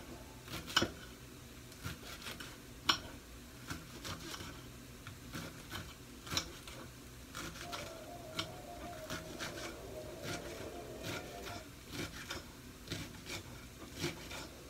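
Knife cutting romaine lettuce on a ceramic plate: the blade clicks and taps sharply against the plate at an irregular pace, about one or two strokes a second.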